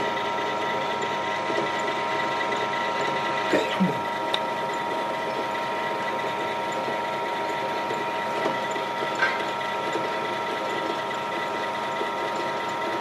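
Bench drill press motor running steadily with no load, a constant hum with several whining tones. A few light knocks come and go over it.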